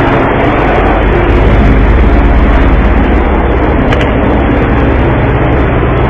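Loud, steady rumble of a boat's engine with a fast, even throb, heard on board.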